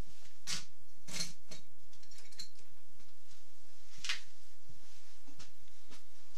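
A handful of separate sharp clicks and clinks of hand tools being handled as a pair of side cutters is picked up.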